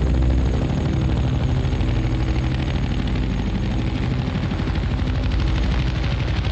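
Several Bell UH-1 Huey helicopters flying in formation, their rotor blades making a steady, rapid chop over a low engine drone.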